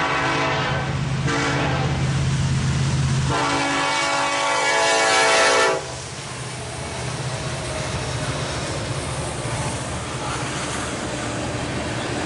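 Locomotive air horn on the lead unit, an EMD SD70ACe, sounding in blasts over the diesel rumble; the last blast is the longest and loudest and cuts off suddenly about six seconds in. Then the diesel locomotives and a train of tank cars roll past with steady wheel-on-rail noise.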